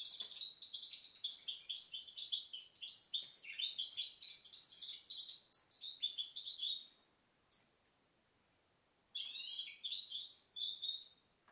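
Goldfinch × canary hybrid (mixto) singing a fast, high twittering song for about seven seconds, then one short note, a pause of about a second and a half, and a second burst of song.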